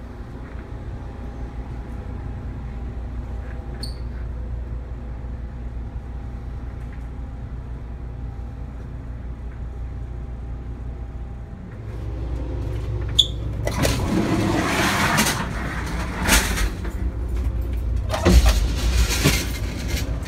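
Steady low hum inside an Amtrak passenger car. About twelve seconds in it turns louder, with a sharp knock and then rushing noise and clatter, as the end doors and gangway between two cars are passed through.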